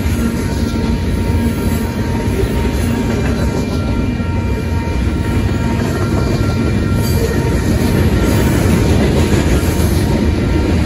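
Freight cars of a Union Pacific manifest train rolling past at speed: a steady, loud rumble and clatter of steel wheels on rail.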